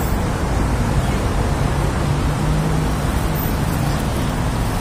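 Wind buffeting a phone's microphone outdoors: a steady, loud rushing noise heaviest in the low end, with traffic rumble mixed in.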